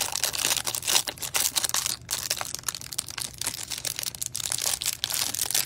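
Clear cellophane wrapper crinkling and crackling in irregular bursts as gloved hands work it off a stack of trading cards.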